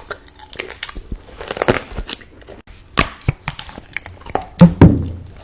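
Close-miked mukbang eating: irregular crisp crunches and crackles of biting and chewing, the loudest cluster about three-quarters of the way through.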